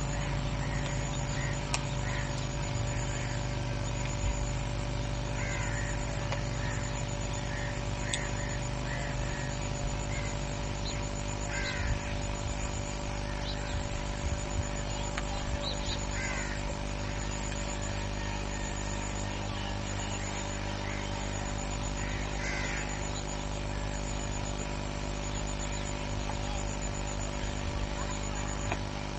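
Birds calling outdoors, short calls every few seconds, over a steady hum.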